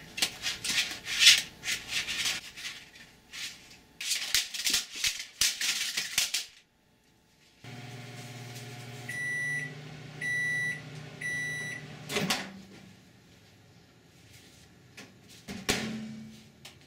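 Several seconds of sharp, irregular rattling and clatter. Then a GE microwave oven runs with a steady low hum, beeps three times, and its door clicks open.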